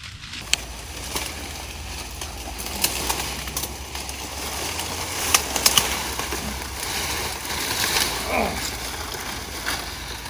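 Brush rustling and twigs snapping as someone pushes through dense palmetto scrub, with a quick run of sharp cracks about five and a half seconds in.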